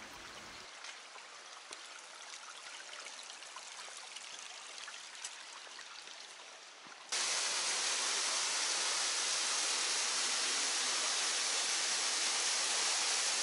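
Faint running water of a shallow creek with a few light ticks, then, about seven seconds in, an abrupt switch to the loud, steady rush of a small waterfall pouring into a pool.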